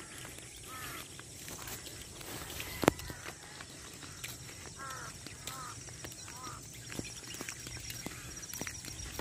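Crows (large-billed crows) cawing from overhead wires: a call about a second in, then a cluster of short caws about five to six and a half seconds in. A single sharp knock about three seconds in is the loudest sound.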